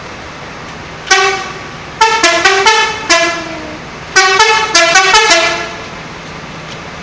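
Telolet bus horn, a multi-tone musical horn, playing a short tune of stepping notes: a single note about a second in, then two quick runs of changing notes around two and four seconds in.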